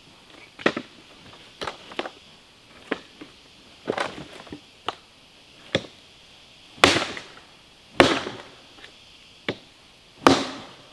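Hatchet blows chopping into a fallen log, about a dozen sharp strikes roughly a second apart, irregular, the hardest ones near the end.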